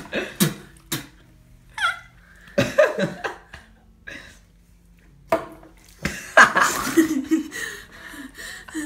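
A string of short vocal bursts: laughter mixed with gasping, hiccup-like breaths from a person whose mouth is burning from a spoonful of chili powder. The longest burst comes about six seconds in.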